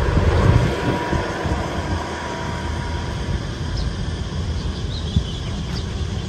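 Traffic on a concrete road overpass: a concrete mixer truck crossing the bridge, its low rumble fading over the first couple of seconds into a steadier traffic noise, with wind on the microphone.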